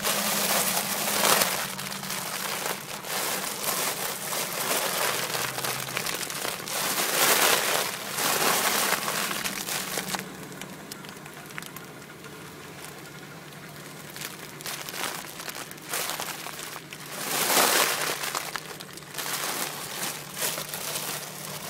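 Helium balloon held to the mouth, crinkling and rustling as helium is sucked out of it, with three louder bursts of rustling and rushing air.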